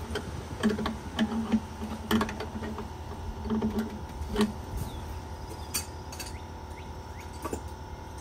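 Two pairs of channel-lock pliers working a stuck gas-pipe union on a pool heater's gas valve: a run of sharp metal clicks and knocks with short low creaking strains as the jaws bite, slip and reseat. The union has not yet broken loose. The clicking thins out after about four and a half seconds.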